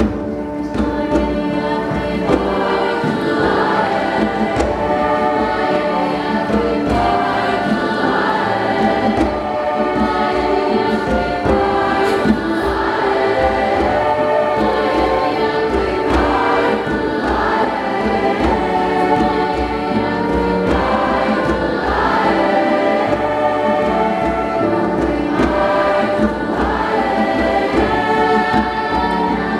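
Large school choir singing together in several-part harmony, the held chords shifting about every second.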